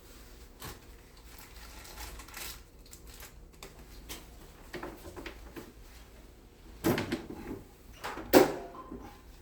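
Handling noises of installation work: scattered light clicks and rustles, then two sharp knocks, about seven and eight and a half seconds in, the second the louder.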